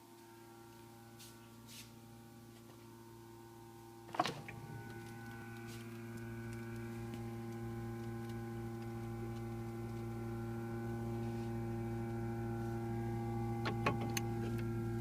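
Refrigerator running with a steady, many-toned hum that slowly grows louder, with one sharp knock about four seconds in and a few small clicks near the end.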